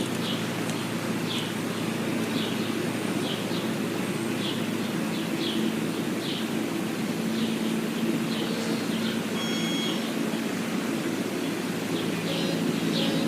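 Short, high chirps from small honey-eating birds, repeated about every half second to a second, over a steady low hum and hiss.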